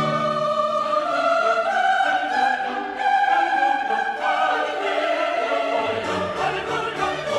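Background music: orchestral music with choral singing holding long notes. The low bass drops out and comes back near the end.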